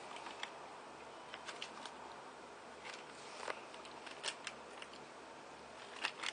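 Faint, scattered clicks and smacks of a boy's mouth chewing soft sour gummy candy, with a few more clicks near the end.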